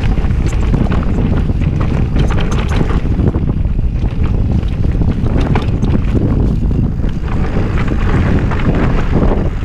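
Wind rushing over the microphone of a camera riding on a full-suspension mountain bike descending a dirt trail at speed, with steady tyre rumble and frequent rattles and knocks from the bike over bumps.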